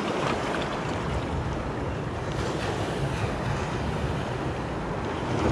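Sea waves washing against shoreline rocks, a steady surf, with wind buffeting the microphone.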